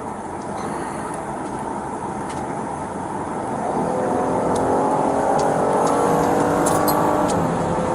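Police patrol car driving: steady road and engine noise that grows louder about four seconds in, where a steady engine drone joins it.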